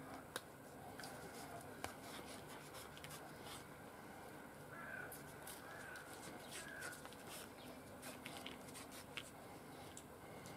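Faint handling sounds of thin cord being wound tightly around a freshly glued knife sheath to clamp it: light rubbing with small scattered clicks. Three faint short chirps come near the middle.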